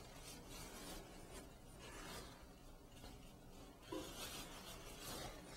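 Faint rustling and rubbing of a cloth towel handled around a freshly casted forearm and hand, coming and going, a little stronger about four seconds in.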